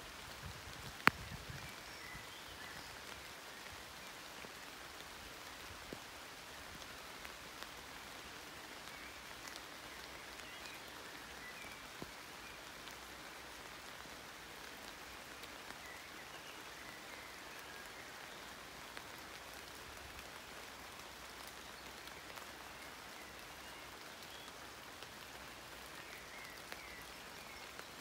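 Rain falling steadily on the broad leaves of horse chestnut trees: an even hiss of many small drop hits, with one sharp click about a second in.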